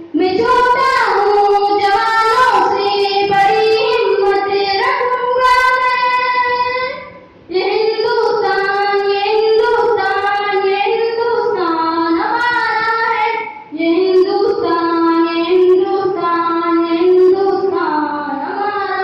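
A child singing a patriotic Hindi song solo, with long held, melismatic notes in three phrases and short breaks about seven and thirteen seconds in.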